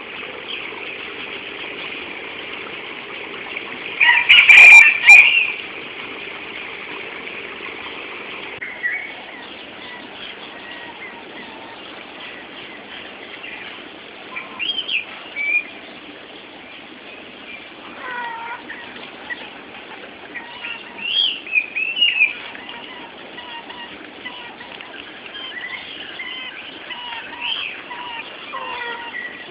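Chickens in a wire cage clucking and calling in short scattered bursts. Before that there is a steady hiss, with one loud burst of noise and calls about four seconds in.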